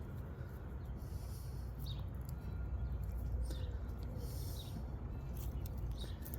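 Low, steady background hum with a few faint, brief higher sounds scattered through it.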